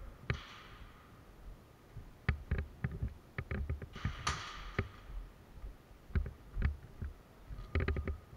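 Irregular footsteps and knocks of gear on a concrete floor, with a brief whooshing hiss about four seconds in and a cluster of thumps near the end.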